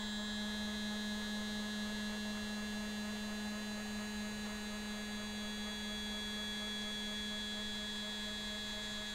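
Stepper motor driving a linear stage along its axis at a steady 40 inches a minute, giving a steady pitched hum with several higher overtones.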